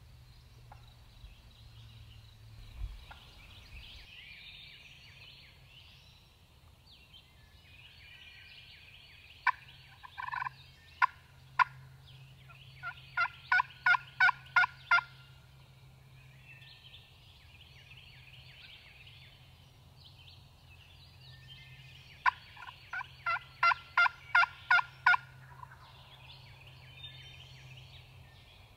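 Turkey calling in two runs of short, sharp notes that quicken toward the end, the first starting about ten seconds in and the second a little past twenty seconds. A faint, steady, high-pitched background chorus runs beneath them.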